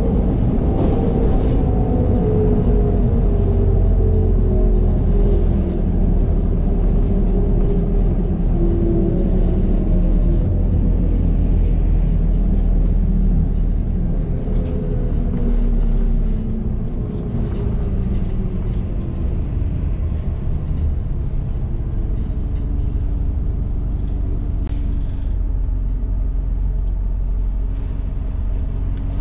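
A 1998 New Flyer C40LF transit bus heard from on board while driving: a heavy low rumble with a drivetrain whine that falls in pitch as the bus slows, rises briefly about halfway, falls again, and settles into a steadier, lower hum for the last few seconds. A few light rattles and clicks from the cabin.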